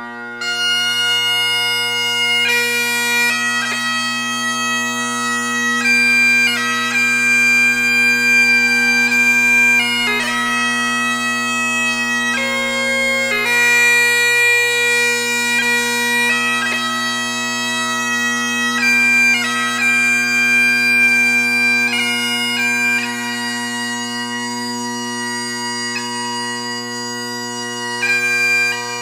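Bagpipe music: a slow melody of held notes over steady drones.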